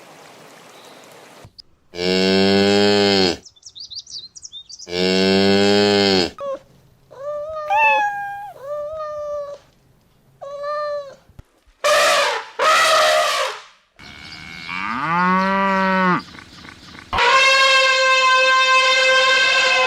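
A string of separate animal calls with gaps between them. It opens with two long, low cow moos. These are followed by a run of short, higher calls, two brief harsh bursts, a call that rises and falls, and a long wavering call near the end.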